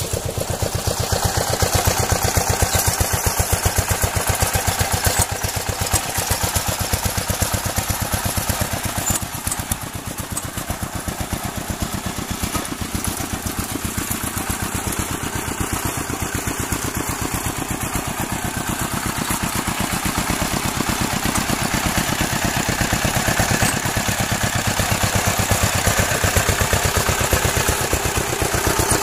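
A small engine running steadily, with a fast, even pulsing throb.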